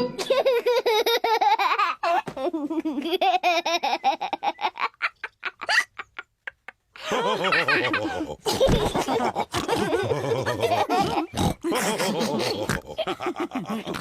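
Cartoon pig characters laughing, several voices together. A first burst of laughter trails off into short, evenly spaced laughs about five seconds in, then a longer bout of group laughter follows.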